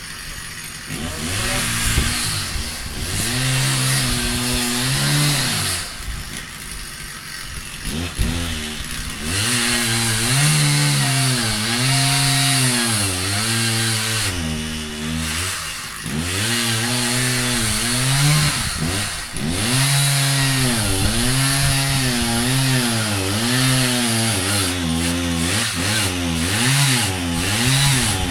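Two-stroke chainsaw running hard, its engine speed sagging and rising again over and over, about every two seconds.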